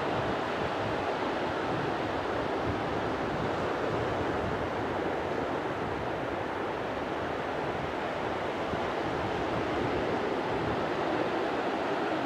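Steady wash of surf on a rocky shore, an even, continuous rush with no single wave standing out, mixed with some wind.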